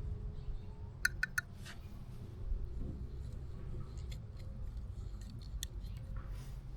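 Light clicks and taps from handling PVC pipe and fittings while gluing a joint: three quick clicks about a second in, then a few scattered ones, over a low steady rumble.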